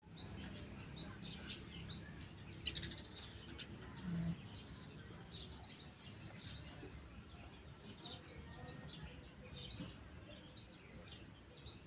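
Small birds chirping: short, high chirps come several times a second and keep going. A brief clatter sounds near three seconds in, and a short low hum a little after four seconds.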